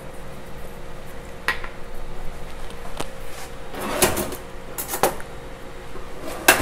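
Kitchen dishes and utensils knocking and clinking on a stone counter: a handful of sharp clicks and clatters, busiest about four seconds in and again just before the end, over a faint steady hum.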